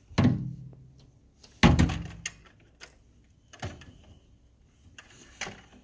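A series of dull thumps, each ringing out briefly; the first two, near the start and a little under two seconds in, are the loudest, followed by several softer knocks.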